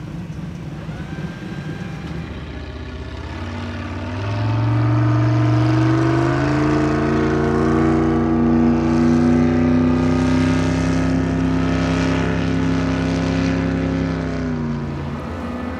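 Powerboat engines running hard: a loud engine note swells about four seconds in, holds a steady pitch, then drops in pitch near the end.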